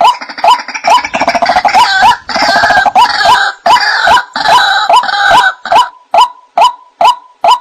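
White-breasted waterhen (ruak-ruak) calls played as a bird lure: a steady series of short 'wak' notes at about two and a half a second. For the first six seconds or so, denser and harsher overlapping croaking calls join in.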